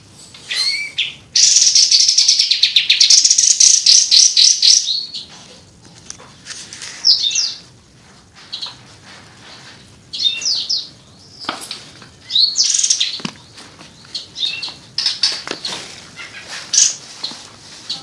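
Caged kapas tembak songbird singing: a loud, fast run of rapid notes for about four seconds, then scattered short chirps and whistled phrases. A couple of sharp knocks come in the second half.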